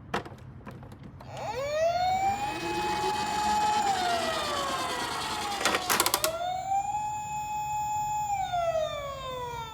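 Toy ambulance's electronic siren wailing twice: each wail rises, holds a high note, then falls, with a short burst of clicks between the two.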